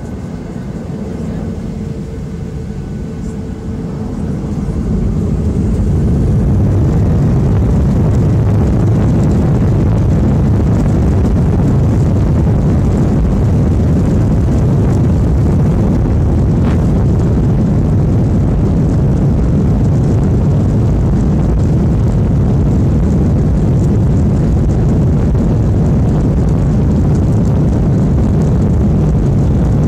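Boeing 737-800's twin CFM56 jet engines heard from inside the cabin over the wing. They spool up to takeoff thrust over the first five or six seconds, then hold a loud, steady low rumble with rushing noise through the takeoff roll.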